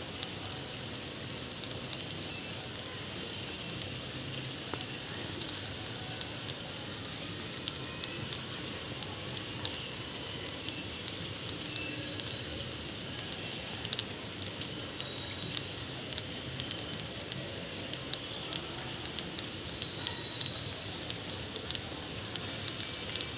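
Steady rain falling, with many separate drops ticking sharply on a surface.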